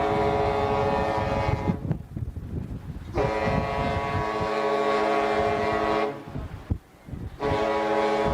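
Ship's horn sounding long, steady blasts. One blast ends about two seconds in, a second lasts about three seconds, and a third starts near the end.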